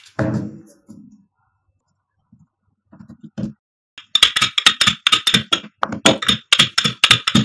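Wooden rolling pin rolling a ball of dough out on a silicone mat in quick back-and-forth strokes, several a second, starting about four seconds in.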